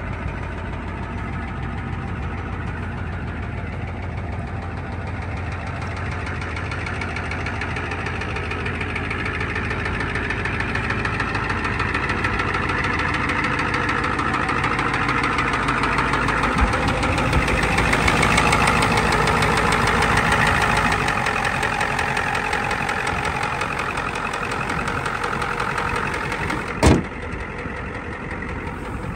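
Ford 7.3 IDI turbo V8 diesel idling steadily, growing louder toward the middle and easing off again. A single sharp knock near the end.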